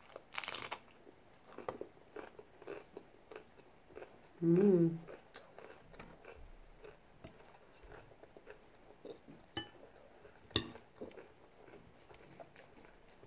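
A crisp hard corn taco shell crunches as it is bitten, followed by chewing with small crackling crunches. About four and a half seconds in comes a short hummed 'mm' of a voice, and a few sharper clicks come near the end.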